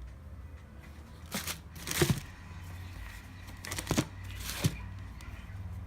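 Shoe box and its paper packaging being handled: a few short rustles and knocks, loudest about two seconds in and again about four seconds in, over a low hum.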